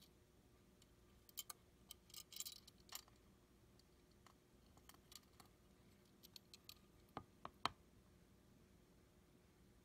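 Small metal case of a miniature kinetic art piece handled and turned in the fingers: scattered sharp clicks and light metallic taps, a quick run of clicks with some scraping about two seconds in, then two firmer knocks close together near the end, the second the loudest.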